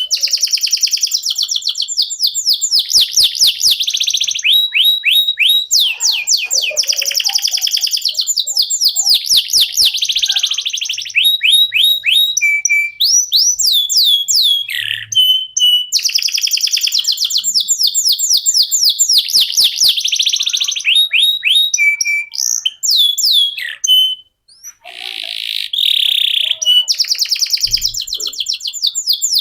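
Domestic canary singing a long, continuous song of fast rolling trills and repeated downward-sweeping notes, with a brief break about 24 seconds in.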